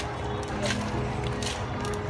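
Background music with held, sustained notes, and a few faint clicks.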